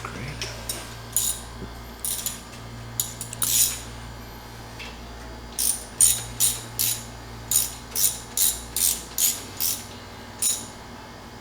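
Hand ratchet wrench clicking in short strokes, a few scattered at first, then a quicker run of about two to three strokes a second, over a faint low hum.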